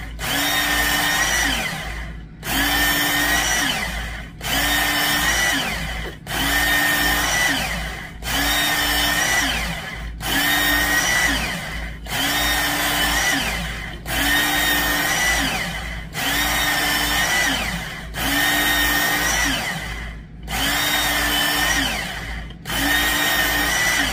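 Work Sharp Knife and Tool Sharpener's electric belt motor running with a knife blade drawn across the belt, in about a dozen spells roughly two seconds apart. At the end of each spell the whine sags in pitch and briefly dips before the motor picks up again. These are the final passes putting a keen edge on a D2 steel blade.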